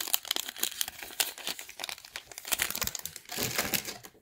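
Foil wrapper of a Panini Mosaic basketball card pack being torn open and crinkled, a dense run of irregular crackling that stops just before the end.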